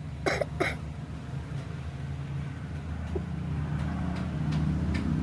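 Two short, sharp breathy bursts from a person's nose or mouth close together near the start, over a steady low hum that grows a little louder later, with a few faint ticks.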